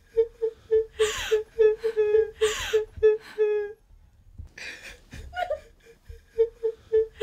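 Theatrical crying: rapid short whimpering sobs at a steady pitch, about four a second, broken by two loud gasping wails in the first three seconds. After about four seconds there is a pause of about a second, then the sobbing starts again.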